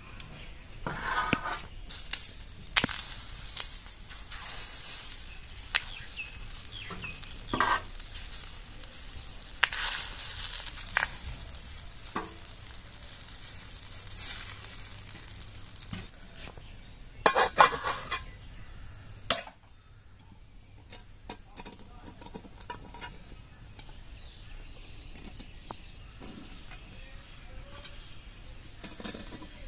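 Rice batter for chitoi pitha being stirred, then sizzling loudly as it is poured into the hot cavities of a cast-iron pitha mould. A few sharp metal clinks of utensils on the pan come later, and it is quieter near the end.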